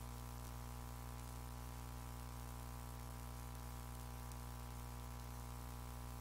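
Steady low electrical hum with many overtones under a constant hiss. It does not change.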